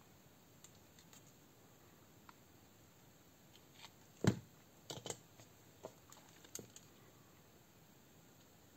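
Faint clicks and taps of small hand tools and a plastic-and-metal airsoft pistol being handled on a rubber work mat, as pliers are put down and a screwdriver is picked up. There is one louder knock about four seconds in, then a few more quick taps.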